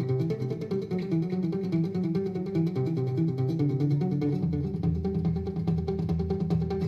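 A trance tune played on acoustic guitar, with continuous picked notes, running through an equaliser plugin. About two-thirds of the way in, the deep bass swells as the low-frequency gain is turned up.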